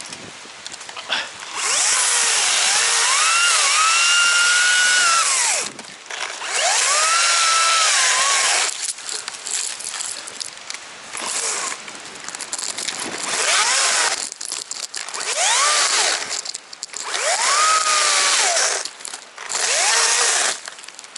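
Chainsaw cutting a thick fallen tree trunk. The engine is revved up in repeated runs of a few seconds each, its pitch rising, holding and sagging, and it drops back toward idle between runs.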